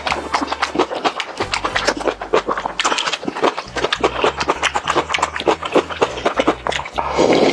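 Close-miked crunching and chewing of crispy fried chicken: a quick, dense run of crisp crackles, several a second.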